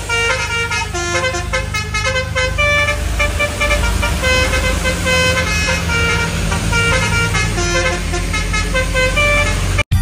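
Basuri P3 musical air horn, fed by an electric compressor, playing a quick tune of short stepped notes over a vehicle engine's steady low running. The tune cuts off abruptly near the end.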